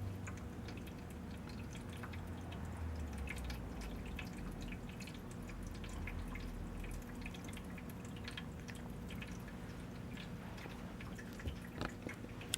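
Quiet room with a steady low hum and scattered faint clicks and ticks, a few sharper ones near the end.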